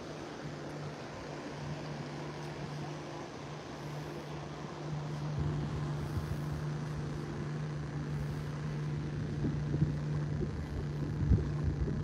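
A motorboat engine running with a steady low hum that grows louder. Gusts of wind buffet the microphone in the second half.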